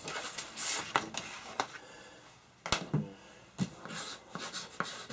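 Hands handling cut leatherette pieces and tools on a workbench: soft rustling with a handful of light clicks and taps, the sharpest about halfway through.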